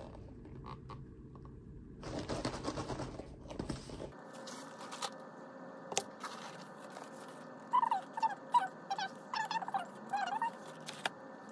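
Clear plastic food packaging crinkling as it is handled. Later comes a run of short, wavering pitched sounds over a faint steady hum.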